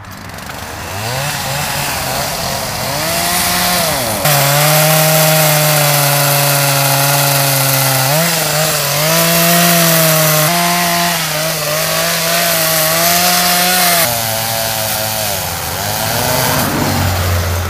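Chainsaw running and cutting through the trunk of an old camellia. It revs up over the first few seconds and is held at high speed through the cut, its pitch sagging now and then under load. It drops back toward idle near the end.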